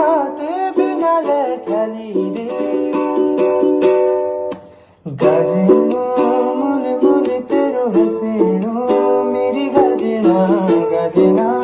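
Background music: a Pahari (Garhwali-language) song with plucked string accompaniment and melody. It dips almost to silence for a moment about five seconds in, then carries on.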